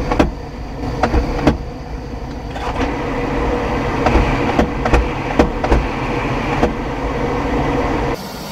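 Mini truck's cabin heater blower fan running with a steady whir and hum while mouse-nest debris is cleared from it, with light clicks and knocks of hands on the dash; the whir cuts off suddenly near the end.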